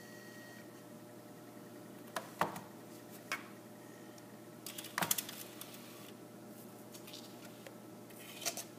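Bose Wave II's slot-loading CD mechanism ejecting a disc, heard as a few faint clicks and knocks as the disc is pushed out, taken out and set down, the loudest about five seconds in, over a steady low hum.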